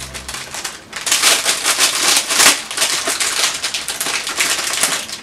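Clear plastic packaging crinkling and crackling as hands open a small bag, starting about a second in.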